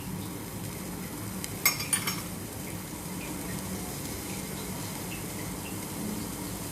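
A spoon clinking against the side of a pan of milky tea as it is stirred, a few sharp clinks close together about a second and a half in, over a steady low hiss from the heating pan on the gas stove.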